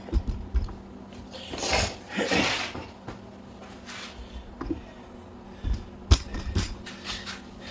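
Metal clunks and knocks of a motorcycle's rear axle shaft being worked into line through the swing arm and wheel hub, with one sharp knock about six seconds in and two longer rushing sounds around two seconds in.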